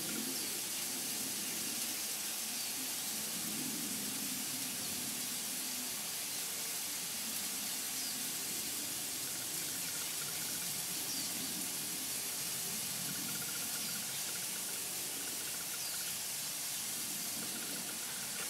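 Cube steaks sizzling steadily in their grease on a hot flat-top griddle: a constant frying hiss.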